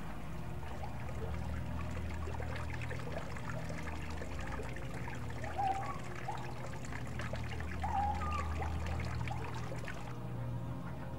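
Water trickling and splashing down a small artificial rock cascade over a steady low hum, with a few short chirps in the middle and later on.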